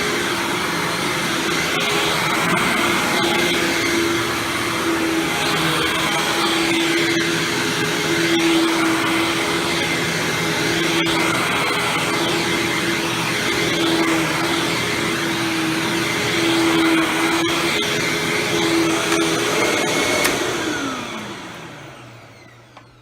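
Hoover WindTunnel Supreme upright vacuum running with its Maytag-built motor: a steady hum over a strong rush of air. About 20 seconds in it is switched off, and the motor's hum falls in pitch as it spins down.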